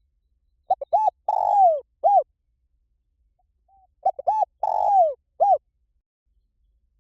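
Spotted dove cooing: two phrases about three seconds apart, each a few short coos, then a longer coo that falls away, then a short closing coo.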